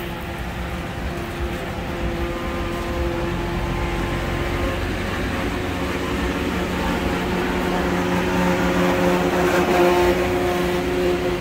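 A motor vehicle's engine running steadily, growing louder toward about ten seconds in and then easing off.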